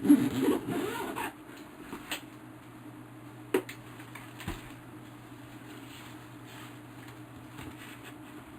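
Camera gear being handled in a padded camera backpack: a burst of rustling and handling noise, then a click, a sharp click and a soft knock a few seconds in, over a steady low hum.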